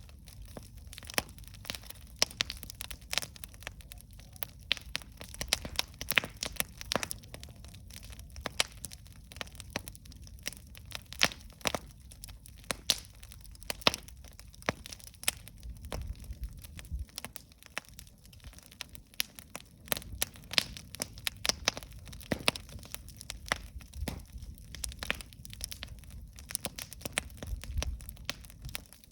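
Wood campfire burning, with sharp irregular pops and crackles over a low rumble of flames.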